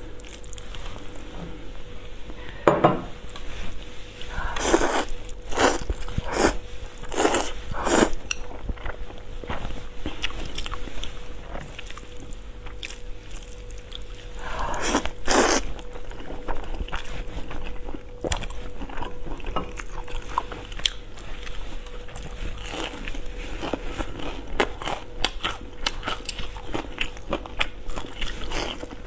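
Close-miked eating: a run of loud slurps of spicy fire noodles about five to eight seconds in and again around fifteen seconds, then steady chewing with small crunches and wet mouth clicks. A faint steady hum runs underneath.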